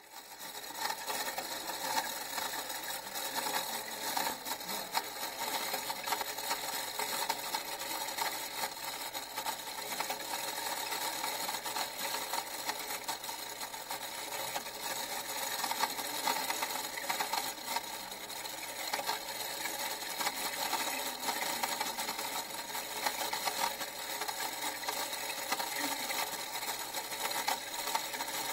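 Small motor-driven mechanism of a rubber drive belt, pulleys and gears running steadily, fading in at the very start.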